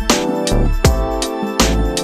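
Instrumental background music with a steady drum beat over held notes.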